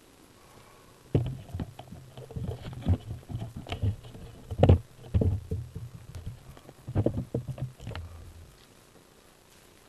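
Footsteps over garden rocks and mulch, picked up through a body-worn camera along with knocks to the camera itself: a run of irregular dull thumps and scuffs. The loudest comes about halfway through, and the sounds stop shortly before the end.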